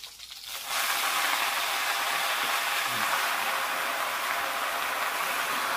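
Freshly washed mustard greens (sarson saag) dropped into hot oil in a kadai over a wood fire: a loud, steady sizzle starts suddenly about a second in as the wet leaves hit the oil, and keeps going.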